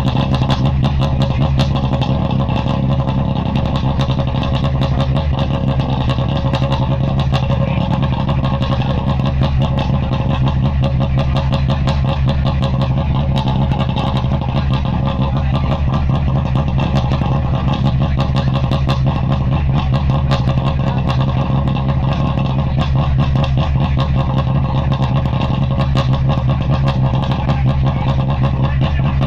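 Renault Clio Super 1600 rally car's 1.6-litre four-cylinder engine running at a steady fast idle, its note holding the same pitch throughout without being revved.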